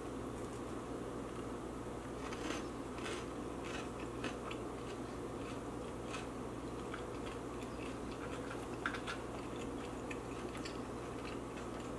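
A person chewing Flamin' Hot Cheetos close to the microphone, with scattered short crunches. Under it runs the steady rush of air from a room heater.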